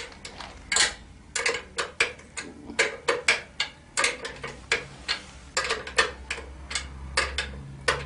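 Ratcheting wrench clicking in short irregular runs as it turns an ATV's chain-adjuster bolts, drawing the rear axle back to take up slack in the drive chain.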